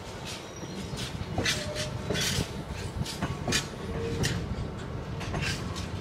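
Empty coal hopper wagons rolling slowly past over a steady low rumble. Their wheels and bogies give repeated sharp clanks and knocks, with a few brief wheel squeals.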